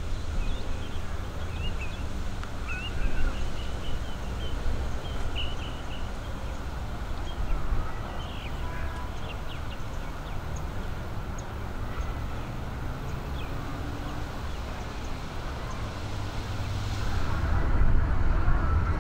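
Outdoor ambience: wind rumbling on the microphone, with birds chirping in the first half. A louder rushing noise comes in near the end.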